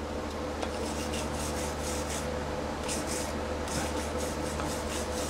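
Hand wire brush scrubbing back and forth over a fresh stick-weld bead on steel plate, cleaning off the last of the flux slag: a run of short, scratchy strokes.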